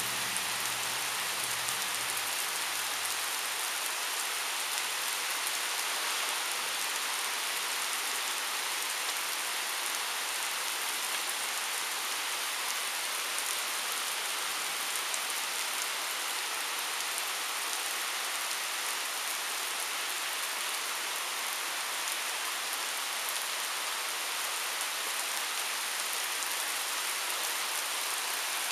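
Heavy rain pouring onto asphalt pavement, a dense, steady hiss of drops striking the road.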